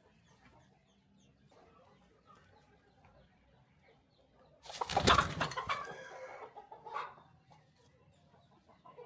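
Chickens clucking faintly, then a sudden loud, noisy burst about five seconds in that fades over a couple of seconds, with one more sharp sound near the end of it.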